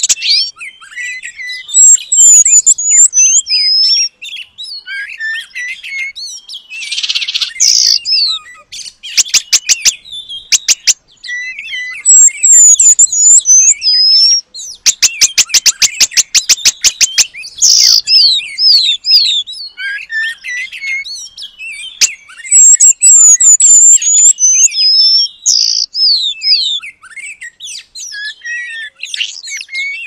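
Songbird singing a fast, varied run of high squeaky chirps and slurred whistles, broken twice by a rapid clicking rattle lasting a second or two.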